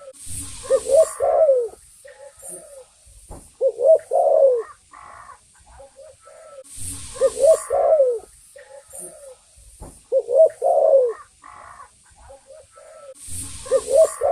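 Spotted dove (tekukur) cooing, a lure call: short phrases of soft, warbling coos repeating about every three seconds. A brief rushing noise accompanies some of the phrases.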